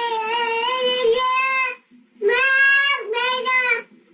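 A young child singing alone in long, high, held notes. The voice breaks off about two seconds in and again near the end, pausing for breath between phrases.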